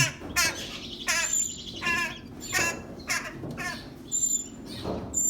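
A bird calling over and over: seven or eight short, pitched calls in quick succession, with thin high whistle-like notes joining in near the end.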